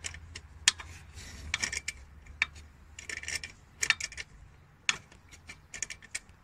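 Scattered metallic clicks and clinks of a socket and wrench being worked onto the bolts of a truck's fan clutch pulley, over a low hum that fades out about halfway through.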